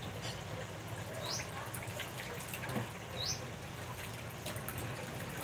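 Two short, high chirps, each rising quickly in pitch, about two seconds apart, over a steady low hum and a few faint clicks.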